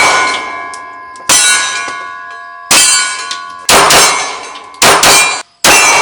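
A series of about six loud metallic clangs at uneven intervals, each one sudden and ringing on with several steady tones that die away over about a second.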